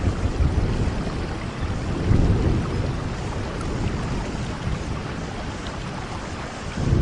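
Steady rain with low rolling thunder rumbling beneath it, swelling about two seconds in and again at the end.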